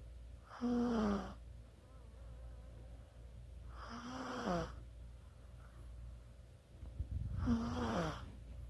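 Chihuahua snoring while asleep: three snores about three and a half seconds apart, each a short pitched snore that drops in pitch at its end.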